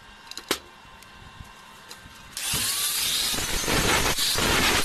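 A sharp knock as an angle grinder is handled, then the grinder switches on a little over two seconds in, a brief rising whine as it spins up, and runs loud and steady with its disc grinding against a metal square tube.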